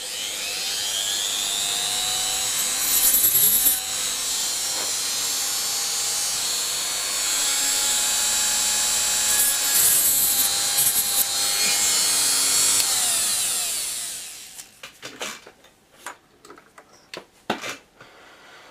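Dremel rotary tool with a small cutting-blade bit spinning up with a rising whine, then running at high speed while cutting incisions into styrene plastic, louder in two short stretches. It winds down with a falling whine about fourteen seconds in, followed by a few light handling clicks.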